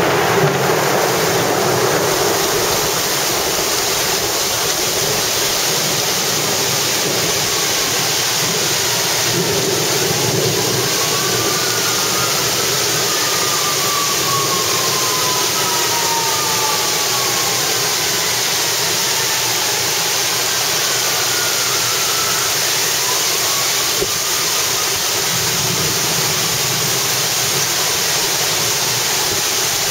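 Heavy wind-driven rain and strong wind in a severe thunderstorm: a loud, steady rush, with the tail of a thunder rumble at the very start.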